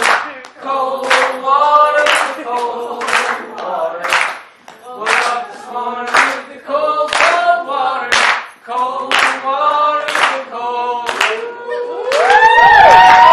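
A crowd singing a chant together, clapping in time about once a second. Near the end it breaks into loud applause and whooping cheers.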